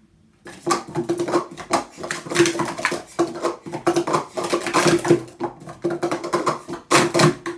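Plastic sport-stacking cups clacking rapidly against each other and the mat as they are stacked up and down at speed, a fast run of clatters that stops abruptly near the end.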